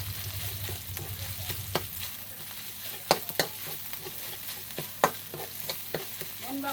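Pounded chili paste stir-frying in a little oil in a hot wok, sizzling steadily, with a spatula stirring and scraping and knocking sharply on the pan every second or so.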